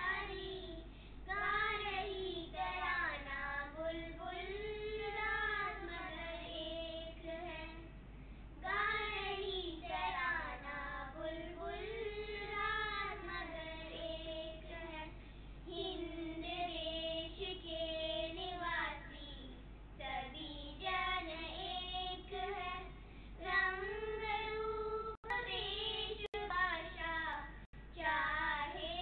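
Three young girls singing a melody together in held, gliding notes. The sound cuts out briefly a few times near the end.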